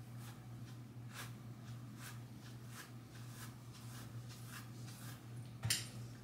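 Hairbrush strokes through wet curly hair: faint, regular swishes about two a second, with one louder handling noise near the end, over a steady low hum.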